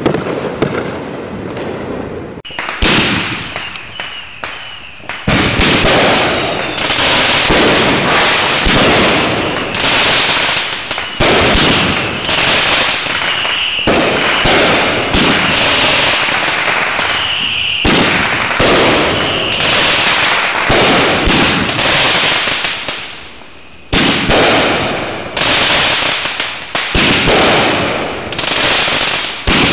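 Consumer multi-shot firework cakes firing shot after shot: tubes launching and shells bursting, with crackling flowers. There is a short lull about three quarters of the way through.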